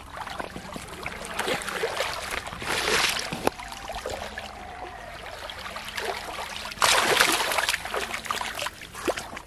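Splashing and sloshing in shallow water from a hooked rohu being fought at the surface and hauled onto the muddy bank, with a burst of splashing about three seconds in and the loudest splashing about seven seconds in as it comes ashore.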